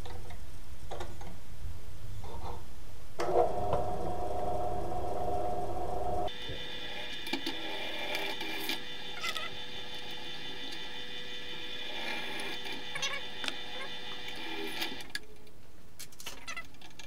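Bench drill press running while drilling holes in a metal handle clamped in a drill-press vise. A low steady rumble changes abruptly about six seconds in to a steadier, higher whine with scattered light clicks and taps.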